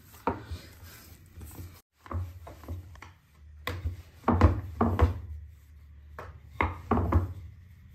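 Naan dough handled in a ceramic bowl, then a wooden rolling pin rolling it out on a floured wooden board: irregular wooden knocks, thumps and rubbing, loudest a little past halfway.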